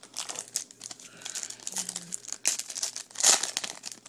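Crinkling foil trading-card pack wrapper being handled and torn open, a run of short rustles, loudest about three seconds in.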